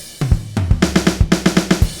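Groove Agent 5 software drum kit playing a pattern of kick, snare, hi-hat and cymbal. After a brief break right at the start, a new pattern comes in with a low boom that falls in pitch, then a fast, steady beat.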